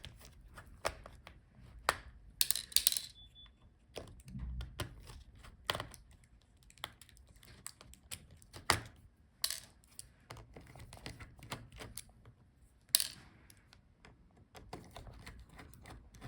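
Irregular small clicks and ticks of a small screwdriver unscrewing a laptop's battery screws, with a couple of brief scrapes.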